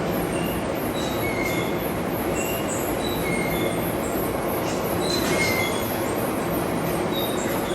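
Steady workshop machine noise with short high squeals recurring every second or so.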